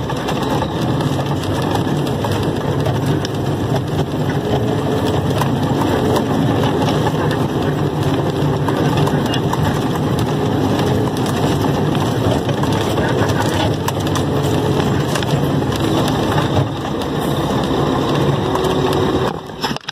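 Truck engine running at low speed, heard from inside the cab, with clatters and knocks from the cab and load jolting over a rough dirt road.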